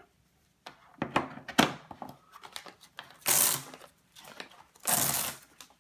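Plastic packaging bags crinkling and rustling as connector cables are handled in a hard plastic case, with a few sharp clicks of plastic connectors knocking about a second in. Two longer rustles come past the middle and near the end.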